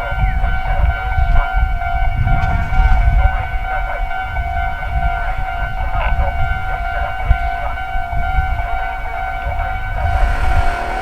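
Japanese railroad crossing alarm ringing, a steady electronic bell tone, with a low rumble underneath.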